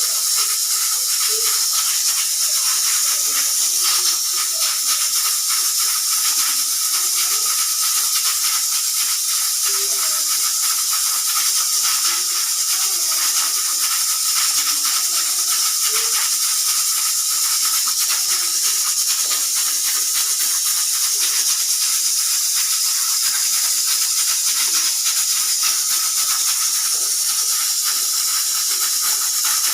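Pressure cooker hissing steadily as steam escapes, with a fine continuous rattle, and no whistle blast: the whistle is not going off.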